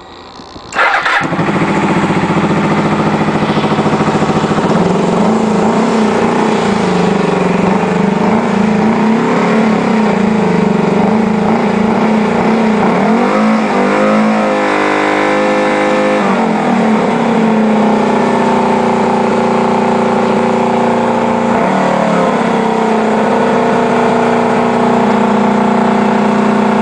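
Suzuki GSX250S motorcycle engine firing up about a second in, its carburettors freshly cleaned and reinstalled, and then running. Its speed wavers unevenly at first and changes pitch around the middle, then it runs steadier through the second half.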